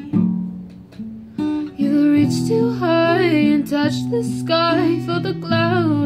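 Acoustic guitar playing a slow song with a singer's voice over it; the guitar is heard alone at first and the voice comes in about a second and a half in.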